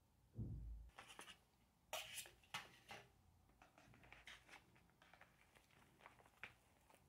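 Faint handling sounds: a soft low thump about half a second in, then a scattered run of light clicks and rustles.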